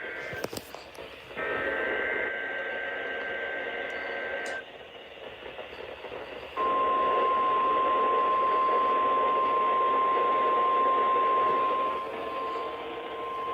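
NOAA Weather Radio Emergency Alert System test heard through a radio receiver with background hiss. The tail of one SAME digital header burst and a second three-second burst of warbling two-tone data come first. After a pause of about two seconds, the steady 1050 Hz warning alarm tone starts about six and a half seconds in.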